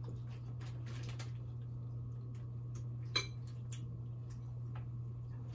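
Scattered small clicks and taps of chopsticks and a fork against glass bowls while eating ramen noodles, with faint mouth sounds of eating. One tap about three seconds in is the loudest. Underneath is a steady low hum.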